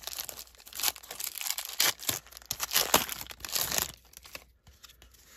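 1989 Score baseball card pack wrapper being torn open and crinkled by hand, with dense crackling for about four seconds before it goes quiet.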